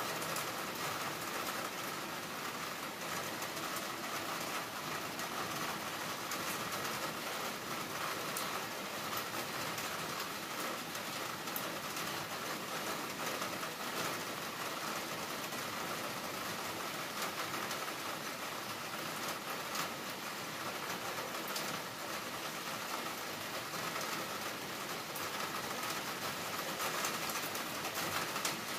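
Heavy rain falling steadily: a dense, even hiss with many small drops ticking on surfaces close by.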